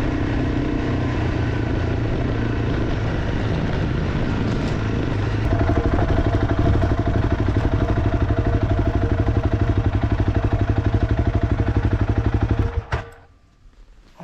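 Honda CRF300 Rally's single-cylinder engine, fitted with an aftermarket exhaust, running as the bike moves along. About five seconds in it drops to an even, pulsing idle, then shuts off abruptly near the end, leaving a few faint clicks.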